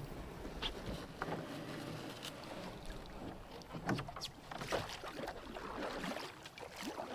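Water sounds around a canoe: irregular small splashes and knocks over a low wash of water and light wind.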